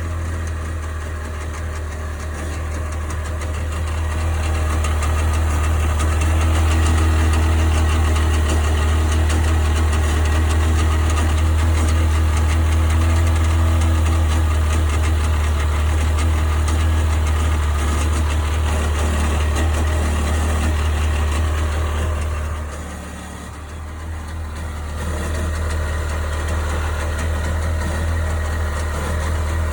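1998 Sea-Doo GS 720's two-stroke twin engine running steadily at low speed with a deep drone. It swells over the first few seconds, dips briefly about two-thirds of the way in, then picks back up. The running carries a strange noise that the owner cannot identify.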